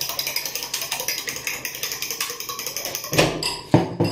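A fork beating eggs in a bowl: rapid, even clicking of the fork against the bowl, several strokes a second. Near the end come two louder knocks.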